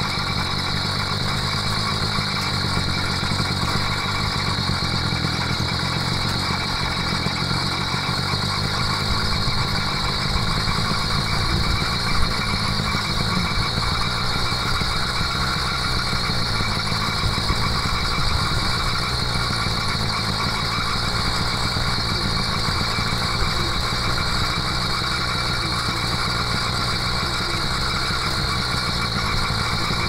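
80cc two-stroke engine-kit motor of a motorized bicycle running steadily while the bike is ridden along, with one brief knock about twelve seconds in.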